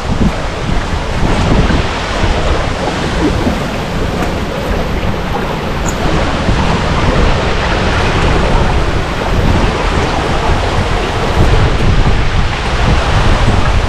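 Loud, steady rushing of a waterfall, with gusts of wind buffeting the microphone.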